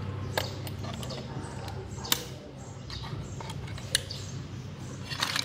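A few sharp taps and clicks, roughly every one and a half to two seconds, as a new lining block is handled and seated on a steel truck drum-brake shoe, over a steady low hum.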